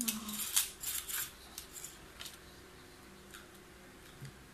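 Sharp plastic clicks and rattles of a Beyblade top being fitted onto a red string launcher. They are bunched in the first second and a half, then only a few faint clicks follow.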